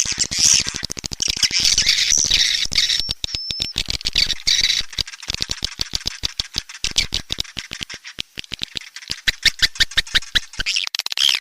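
Swiftlet calls: dense, rapid twittering chirps and fast clicks, with a brief thin whistle about three seconds in and the clicking thinning out in the second half. This is a swiftlet lure call of the kind played to draw swiftlets into a nesting house.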